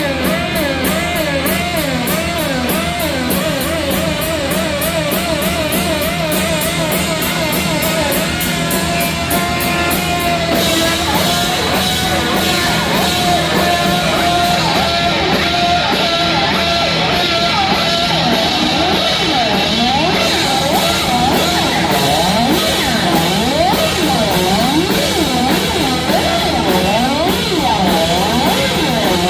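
Heavy metal band playing live with no singing: a distorted electric guitar lead with wide, wobbling vibrato over drums and bass, turning to fast note runs in the last third.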